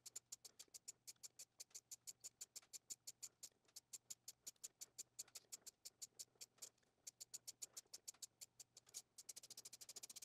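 Quarter-inch hand ratchet clicking quickly and evenly, about seven or eight faint clicks a second, as it drives a tap through a Lisle tap socket into a drilled hole. The clicking pauses briefly twice, near the middle and toward the end.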